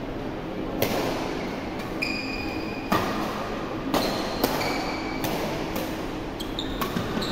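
Badminton rally: racquets strike the shuttlecock in sharp hits about a second apart, with short squeaks from players' shoes on the court floor.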